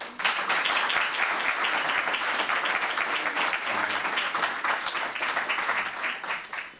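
Audience applauding. The clapping starts abruptly and fades away near the end.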